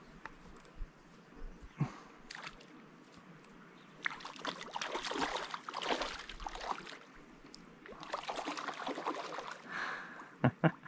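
Hooked trout splashing and thrashing at the surface of a stream as it is played in close to the bank. There are two spells of splashing, one starting about four seconds in and another about eight seconds in.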